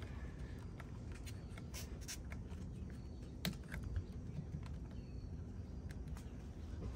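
A few faint clicks and taps of hose-clamp pliers gripping a spring hose clamp on a plastic coolant overflow reservoir, the sharpest about three and a half and four seconds in, over a low steady background rumble.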